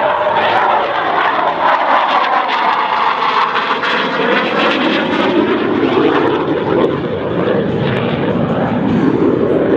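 BAE Systems Hawk 127 jet trainer's Rolls-Royce Adour turbofan, loud and steady as the jet flies a display pass, with a whooshing tone that sweeps down and then back up in pitch as it goes by.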